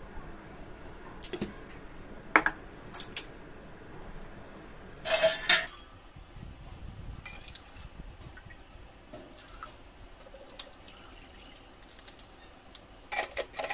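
Salt being spooned from a glass jar into soaked chana dal in a pressure cooker. There are a few sharp clinks of the spoon and jar early on and a louder clatter about five seconds in. Then comes faint sound of water going into the cooker, and a couple of knocks near the end.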